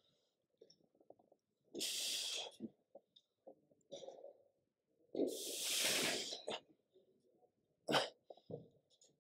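A man breathing out hard through the stretch in separate long, noisy exhales, the longest a second and a half, then a short sharp breath near the end, with faint clicks between.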